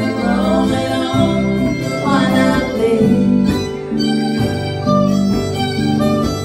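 Live country band's instrumental break: a fiddle plays the lead over two strummed acoustic guitars in a steady rhythm.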